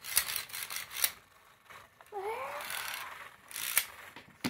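Sharp plastic clicks and rattles from handling a Beyblade top and its launcher, a few in the first second and another near the end. About two seconds in, a brief rising hum from the child.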